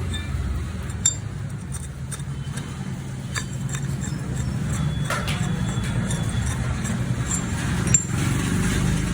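Sharp metallic clinks of metal tools and parts being handled, loudest about a second in and again near the end, over a steady low rumble of road traffic.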